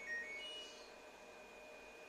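Electronic beeper of a washing machine's control panel playing a short tune of a few beeps that step down and up in pitch and end on the highest note about half a second in. Under it runs a faint steady high-pitched whine and hum.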